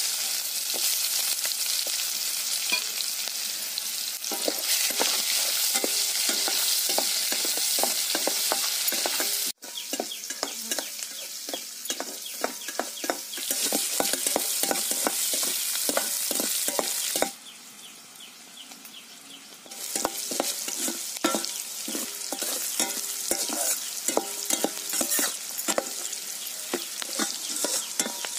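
Sliced onions sizzling as they fry in hot oil in a steel kadai, with a metal spatula scraping and clinking against the pan as they are stirred. The sizzle drops away for about two seconds roughly two-thirds of the way through, then resumes with the stirring.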